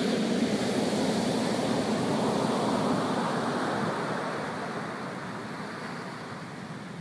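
Sea surf breaking and washing up onto a sandy beach, loudest in the first few seconds and easing off as the water spreads out and draws back.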